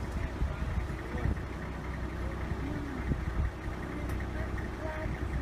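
Vehicle engine idling with a steady low rumble, with a few faint short tones that rise and fall in pitch over it.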